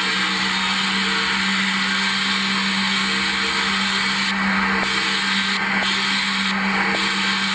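Sharpening machine's electric motor running with a steady hum while its spinning abrasive wheel grinds the bevel on the steel jaws of manicure nippers, adding a continuous hiss.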